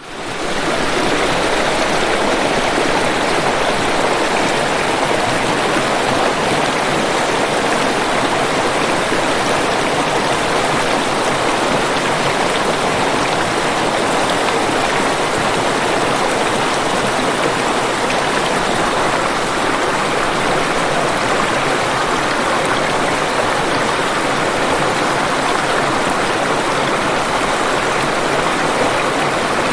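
Waterfall: a steady, dense rush of falling water, fading up from silence within the first second and then holding even.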